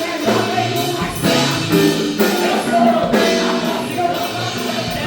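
Gospel music: voices singing over instrumental backing with a steady beat.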